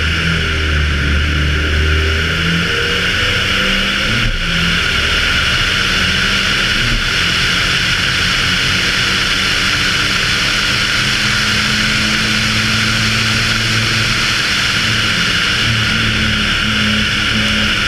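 Audi Quattro A2 Group B rally car's turbocharged five-cylinder engine running hard at racing speed, heard onboard over a steady loud hiss. The engine note dips briefly twice, about four and seven seconds in.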